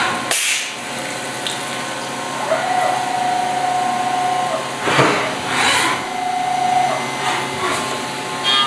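Five-axis CNC milling machine cutting a metal chess rook under flood coolant: a steady hiss of coolant spray and machining, with a single steady cutting tone from the end mill sounding twice, for about two seconds and then about one second.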